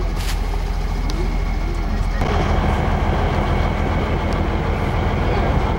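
Heavy dump trucks' diesel engines running steadily. About two seconds in the sound changes abruptly to a louder, noisier engine rumble.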